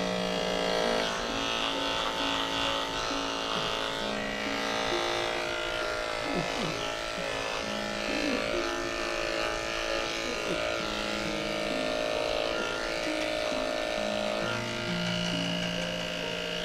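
Andis electric dog grooming clippers running steadily, buzzing as they shave through a dog's matted coat, with background music playing.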